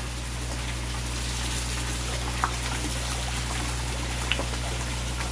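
A steady stream of water pouring from a pipe outlet into a koi pond, splashing continuously on the surface, over a low steady hum.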